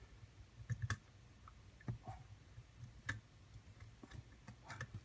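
Faint, scattered clicks of a hook pick lifting the pins of a pin-tumbler padlock under tension, a handful of ticks spread a second or so apart with a small cluster near the end, over a low steady hum.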